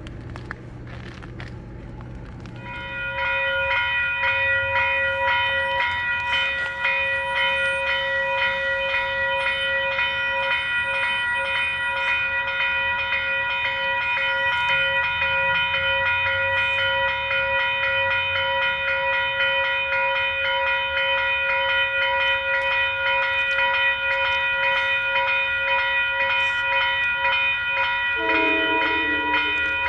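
Railroad grade-crossing warning bell starting about three seconds in and ringing steadily, with a train running under it. Near the end a short train horn note sounds.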